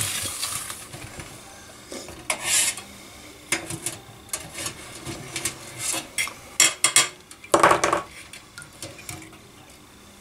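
Metal clinks, knocks and scrapes as a wire hook and an engine piston rattle against the inside of a metal can of solvent while the piston is fished out of the liquid. There is a scrape at the start, irregular clicks throughout, and a louder scraping rush near the end.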